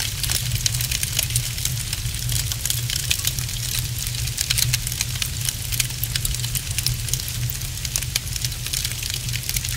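Wood fire crackling in a fireplace: frequent sharp pops and crackles over a steady low rumble.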